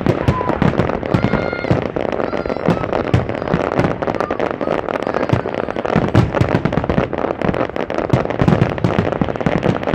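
A dense fireworks barrage: rapid, continuous crackling mixed with many low booming bursts, with no let-up.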